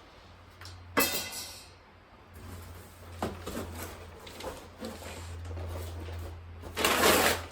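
Steel shelf side rails being handled as they come out of the box: a sharp metal clank that rings briefly about a second in, a few light knocks, then a loud rustling scrape near the end.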